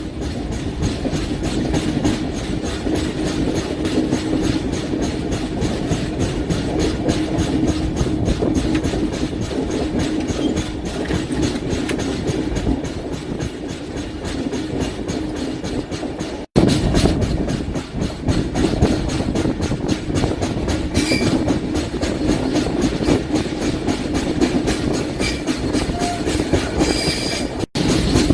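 Indian Railways LHB passenger coaches running on the rails behind a WAP-7 electric locomotive, picking up speed after departure: a steady rumble and hum with rapid, even clickety-clack of the wheels over rail joints. Faint wheel squeal comes in about 21 seconds in and again near the end, and the sound drops out suddenly for a moment twice.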